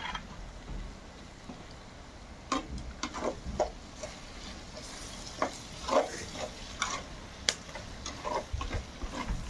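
Irregular scrapes and clinks of a utensil working in a pot, starting a couple of seconds in and coming every half second or so.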